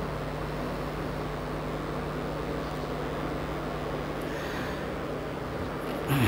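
Steady low hum over a background hiss, with a short, louder sound near the end.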